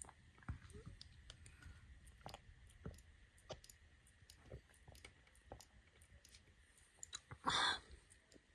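Fingers handling a small plastic drink bottle with a foil-sealed top: a scatter of light clicks and taps, then a short, louder rustle about seven and a half seconds in.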